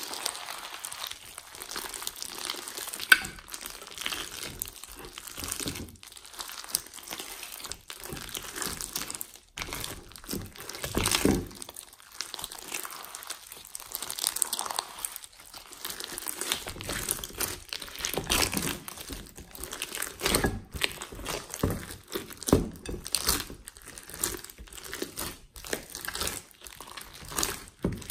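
Hands squeezing and stretching clear glossy slime packed with foam beads: irregular crunching and crackling of the beads as the slime is worked.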